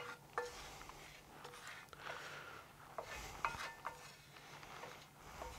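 Wooden spatula scraping marinade out of a metal pan into a stainless steel tray, with short metallic clinks that ring briefly. The clinks come singly at first, then several close together about three to four seconds in.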